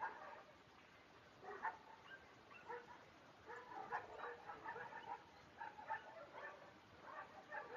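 Faint dog barking and yipping in short, irregular bursts.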